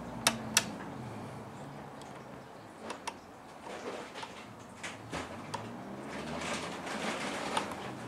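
3D-printed PETG plastic parts being handled and fitted together: two sharp clicks near the start, then scattered lighter taps and rustling.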